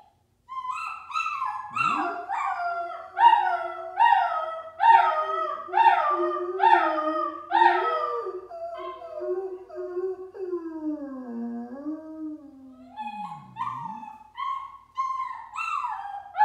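A Doberman's soft howl, one long low note held for about ten seconds that sinks at the end, under a puppy's crying. The puppy gives short, high, falling cries about once a second, which stop for a few seconds near the middle and then start again.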